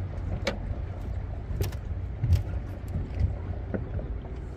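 Small fishing boat's engine running with a steady low rumble, with a few sharp clicks and knocks from gear being handled on deck.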